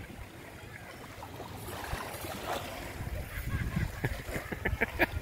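Small waves lapping at the shore of a calm bay, with wind rumbling on the microphone. Several sharp clicks and splashes come near the end.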